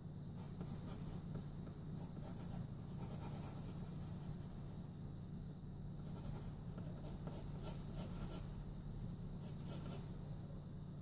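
Graphite pencil sketching on paper: quick scratchy strokes in runs, with a short pause about halfway, over a steady low hum.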